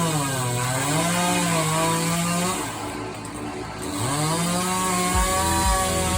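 Two-stroke chainsaw running at high revs. Its pitch sags briefly about half a second in, drops lower around three seconds and then revs back up. Low, regular thumps of music start near the end.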